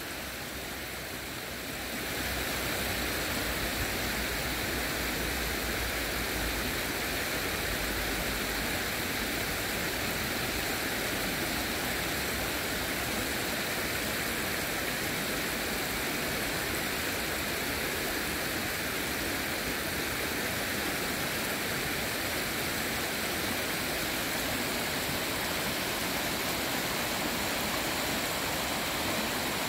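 Shallow stream water running steadily over rocks, a continuous rushing sound that grows a little louder about two seconds in.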